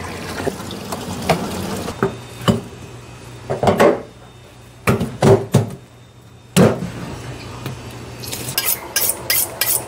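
Water splashing as fish are netted out of a live tank, then a scatter of sharp knocks and thumps at a fish-prep counter. Near the end comes a quick run of scraping strokes from a metal fish scaler working over a flounder.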